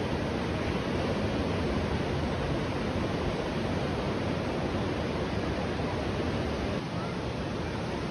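Steady wash of ocean surf breaking on the beach, mixed with wind.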